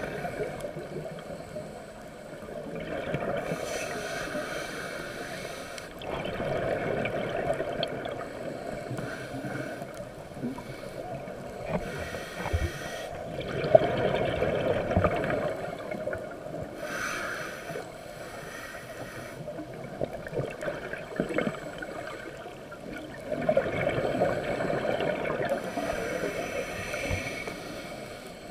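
Underwater sound picked up through a camera housing: a steady muffled water rush, with hissing, bubbling swells that come and go every few seconds.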